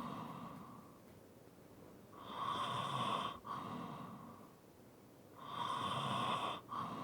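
Heavy, slow breathing of a person asleep, with light snoring. Each cycle is a louder, rasping breath, a brief break, then a softer breath fading away, repeating about every three seconds.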